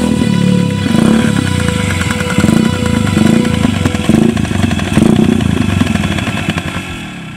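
Motorcycle engine running and being revved, its pitch rising and falling several times, then fading away near the end.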